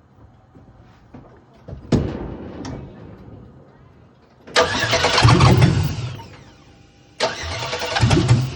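A GM LM7 5.3-litre V8 cranking on the starter in two attempts, about two seconds and then about a second long, without catching: a crank-no-start condition. A short knock comes about two seconds in.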